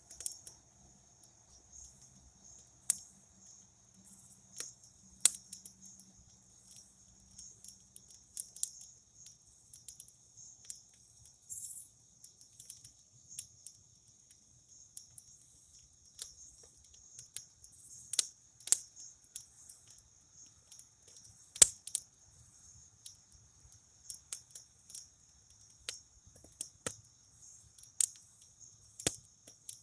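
Campfire crackling, with irregular sharp pops, the loudest a little past halfway, over a steady high trill of crickets.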